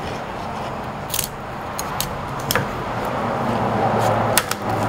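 Kitchen knife cutting through a raw mud crab's shell, with several sharp cracks and crunches spread across the few seconds over a steady background noise.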